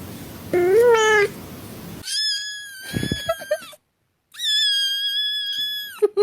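Domestic cats meowing: one short call rising in pitch, then two long, high, steady-pitched cries separated by a brief silence, and a couple of short calls near the end.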